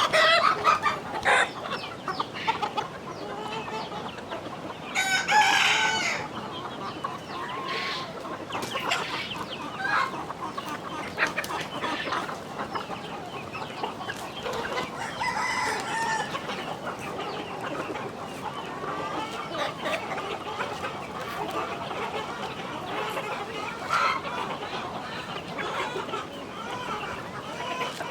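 A flock of chickens clucking and calling, with a rooster crowing among them. The louder calls come at the start, about five seconds in, and again near the end.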